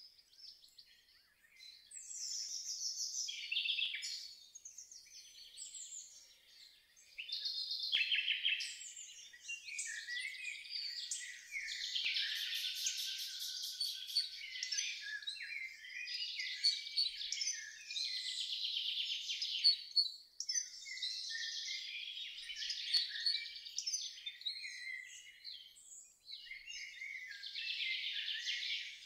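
Several songbirds singing and calling over one another, a near-continuous chorus of high chirps and trills with a few short lulls.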